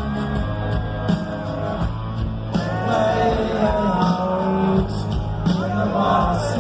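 Rock music: a singer over guitar and a steady beat.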